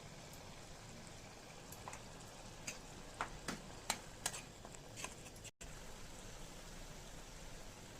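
Chicken frying in oil in a pan: a steady, soft sizzle with a scattering of sharp crackles and pops in the middle, broken by a brief cut-out partway through.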